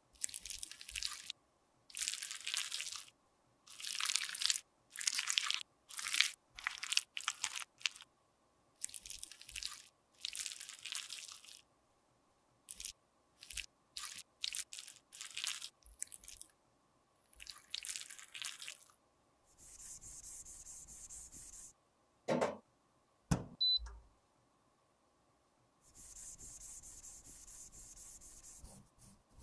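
Repeated short scrapes of a metal spatula and a cotton swab working leftover makeup out of a divided palette pan. Two sharp knocks come a little past two-thirds of the way through, then a steady rubbing of tissue wiping a clear dish.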